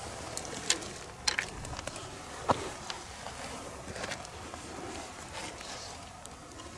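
Footsteps and brush crackling on a wet hillside: irregular sharp snaps and knocks over a steady hiss, the loudest snap about two and a half seconds in.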